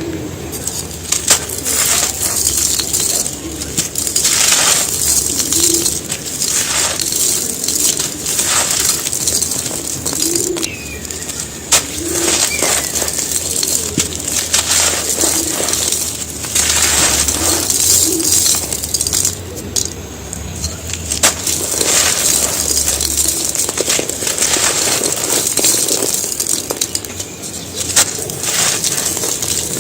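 Dry, gritty handmade cement pieces being crushed and crumbled by hand, in uneven crunches and crackles. Pigeons coo softly at times in the background.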